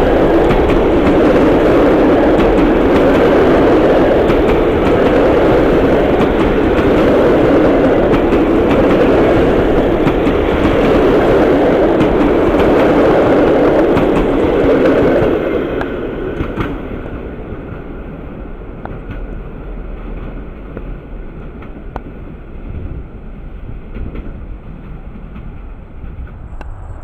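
Locomotive-hauled passenger train passing close at speed, a loud steady rush of wheels on rail that drops away sharply about fifteen seconds in, leaving a fainter rumble as it recedes.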